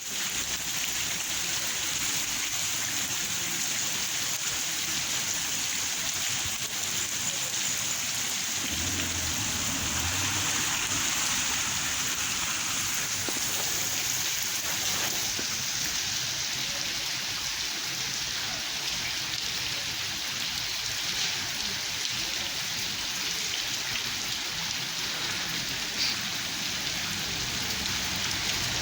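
Steady rain falling and pattering on hard surfaces, a dense even hiss.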